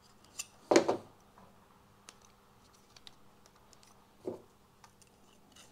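Hard plastic clicks and knocks as a 3D-printed light housing and its cap are handled and fitted together: a short cluster of knocks about a second in, another knock a little after four seconds, and faint ticks between.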